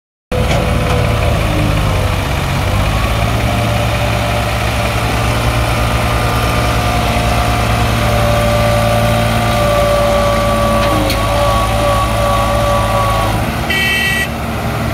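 Diesel tractor engines running steadily, one of them pulling a loaded trolley through mud. Near the end the engine note drops and a brief high-pitched tone sounds.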